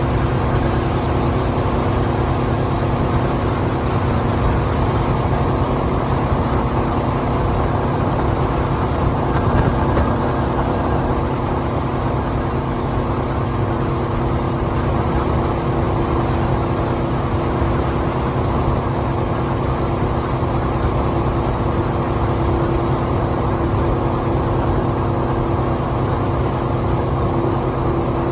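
Speedboat's engine running steadily under way: a constant drone with an even rushing noise over it.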